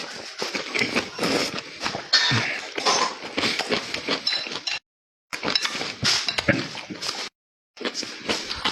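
Eating sounds: wet chewing and smacking of food, with clinks of utensils against dishes. The sound cuts out completely twice for about half a second.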